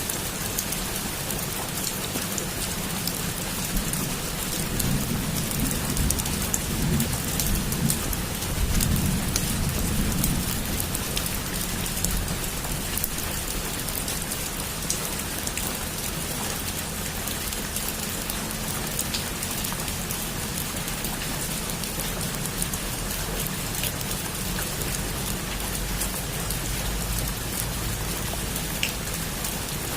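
Heavy rain falling on a rooftop: a steady, dense hiss of drops with many sharp individual drop ticks. A low rumble swells and fades a few seconds in.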